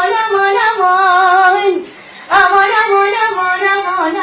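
A child singing a sad Iraqi mawwal in a high voice, holding long notes with wavering ornaments, with a short break for breath about two seconds in.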